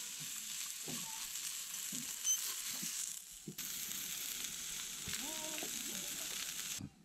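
Meat sizzling as it fries in a frying pan on a camping stove: a steady hiss and spatter that dips briefly about three seconds in and cuts off suddenly near the end.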